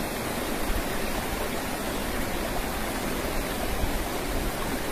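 Shallow river flowing over stones: a steady, even rush of water.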